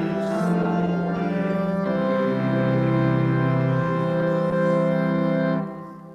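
Organ playing the closing bars of a hymn in sustained chords, the final chord held and released about five and a half seconds in, then dying away.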